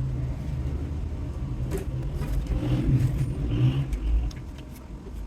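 Steady low hum over a rumble, with a few light clicks; the hum drops away about four seconds in.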